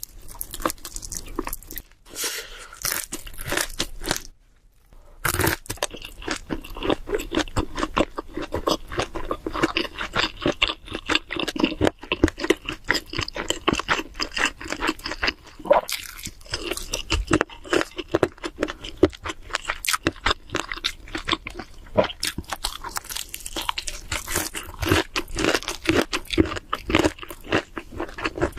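Close-miked chewing and crunching of cheese seafood pizza, a dense run of crackly bites and chews with a brief pause about four seconds in.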